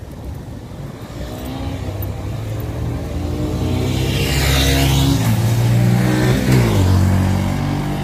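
A motorbike passing close by on the road. Its engine note grows louder and rises as it approaches, then drops sharply in pitch as it goes past, about six and a half seconds in.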